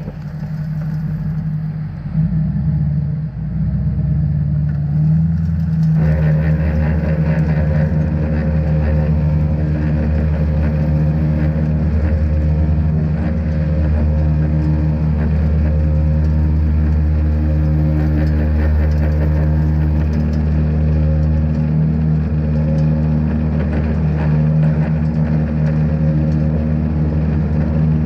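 A truck and its Salt Dogg SHPE2000 V-box salt spreader running while the spinner throws salt onto wet pavement: a steady low mechanical hum over a hiss of noise. The sound grows fuller and louder about six seconds in and then holds steady.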